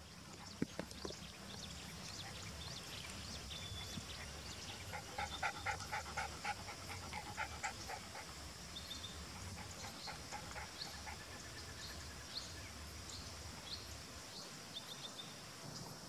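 Outdoor ambience: a low rumble, a quick run of repeated animal calls from about five to eight seconds in, and short high bird chirps scattered through. The rumble stops near the end.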